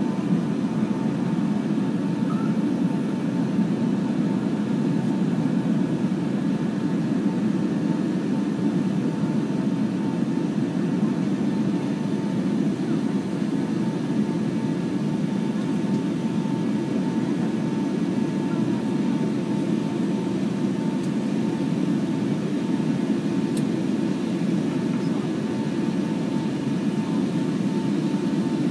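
Steady roar of a Boeing 757-200's jet engines and rushing air, heard inside the passenger cabin at high power, with a faint steady whine above it.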